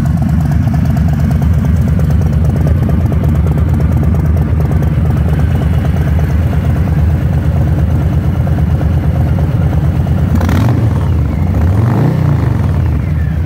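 Harley-Davidson Softail Slim's 1745 cc Milwaukee-Eight 107 V-twin idling in neutral, with a sharp click about ten and a half seconds in and the engine note briefly rising and falling near the end.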